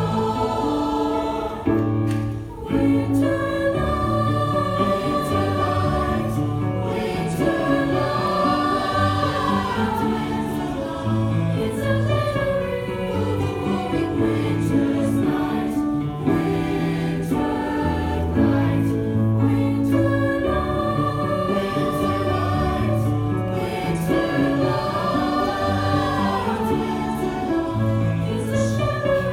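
High school choir singing in several parts, with a steady low line underneath.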